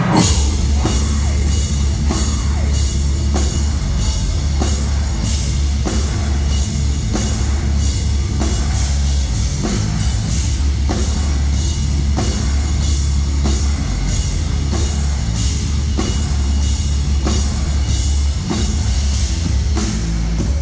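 Live metalcore band playing at full volume: heavy distorted guitars and bass over a drum kit, with a steady beat of drum and cymbal hits. The full band comes in suddenly at the very start.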